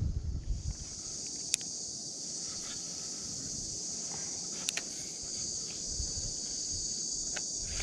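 A steady, high-pitched insect chorus, with a few sharp clicks in the middle.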